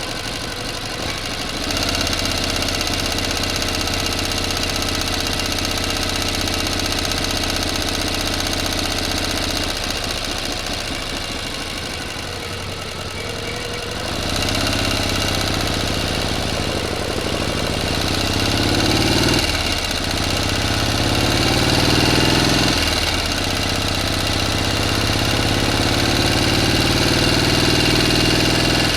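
An engine running at a steady idle that gets louder about two seconds in; from about halfway through its pitch rises and falls as it is revved, with two brief dips near the end.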